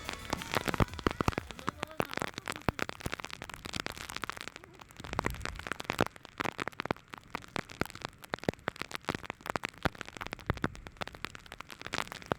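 Rain: raindrops striking a hard surface close to the microphone, heard as many irregular sharp taps over a faint hiss.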